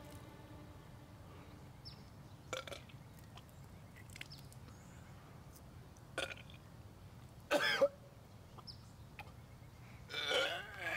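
A winded man bent double, gagging and dry-heaving in a few short bursts from the throat, with a longer strained, voiced retch near the end.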